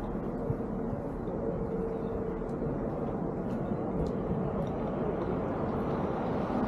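Steady outdoor rumble with a faint steady hum running through it, and no distinct event.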